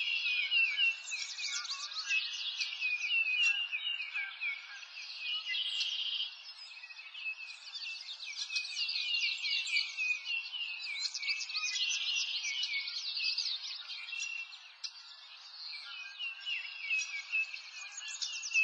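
Many songbirds chirping and singing together in a dense, unbroken chorus of quick high chirps and trills.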